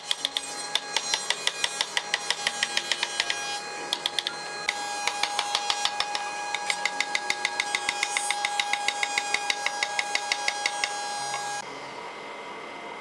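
A hammer tapping rapidly and evenly on a hardwood table frame's joints, about six or seven blows a second. The tapping pauses briefly near 4 s and stops about a second before the end.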